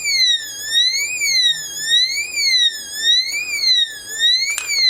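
Spider-wrap anti-theft security tag's built-in alarm sounding: a loud electronic siren whose pitch sweeps up and down a little more than once a second, with a click near the end.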